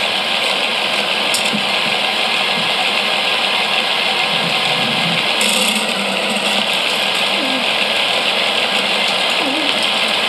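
Mould King 11012 motorised building-block roller coaster running, a steady mechanical whir and rattle. A short hiss of silicone spray about five and a half seconds in.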